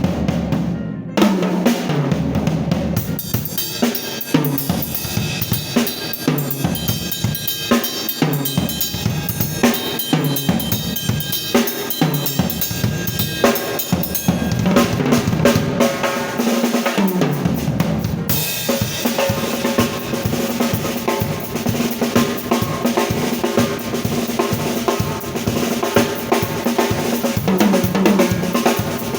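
Drum kit solo: rapid snare, bass drum and tom hits played continuously. From about two-thirds of the way in, a steady cymbal wash rings over the hits.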